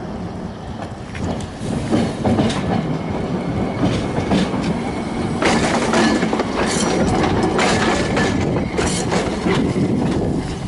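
Vintage 1928-built Hankai Tramway streetcar Mo 161 rolling past close by: a rumble with a run of clacks from the wheels over rail joints. A thin high wheel squeal comes in around the middle.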